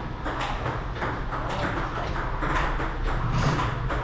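Table tennis rally: the ball clicks off the paddles and table in a quick, fairly even rhythm, about three hits a second.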